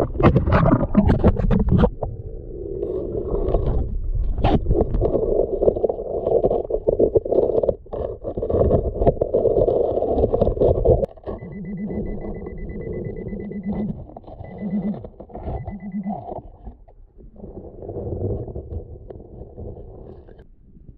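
Underwater rustle and knocks of a pinpointer probing the gravel of a creek bed, heard through a submerged camera. About eleven seconds in, a high buzzing tone from a Nokta Pulse Dive waterproof pinpointer sounds for a couple of seconds, then twice more briefly, signalling a metal target.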